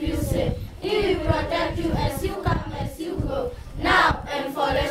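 A group of children singing a worship song together, unaccompanied, in phrases with short breaths between them.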